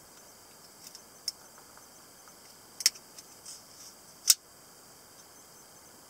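Folding lockback pocket knife being unlocked and folded shut: a few light metallic clicks, then a sharper snap about four seconds in as the blade closes into the handle.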